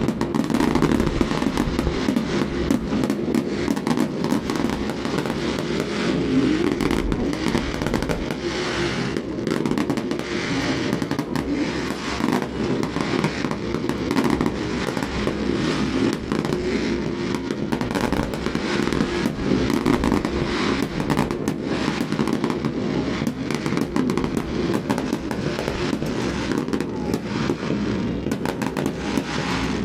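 Fireworks going off: a dense, unbroken crackle of rapid small pops and cracks that never lets up.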